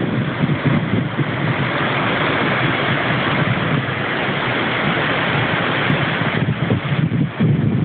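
Ocean surf breaking and whitewater rushing over shoreline rocks, a continuous hiss that swells from about a second and a half in and eases around six seconds, with wind buffeting the microphone.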